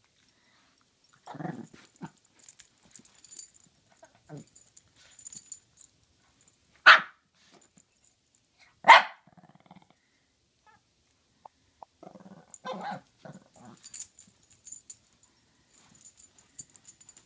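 Shih Tzu barking: two short sharp barks about two seconds apart in the middle, with softer low growly noises before and after and faint rustling of a blanket as it plays.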